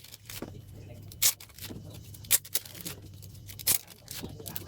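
Photocards and their plastic sleeves being handled and sorted: a sharp, crisp snap about once a second, with lighter clicks and crinkling between.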